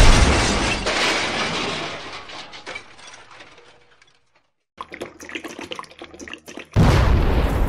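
Sound effects of a toy train wreck: a loud crash as the locomotive and wagons derail and overturn, its noise fading away over about three seconds. After a moment of near silence come faint scattered crackles and ticks, then nearly seven seconds in a sudden loud rushing noise as the wreck catches fire.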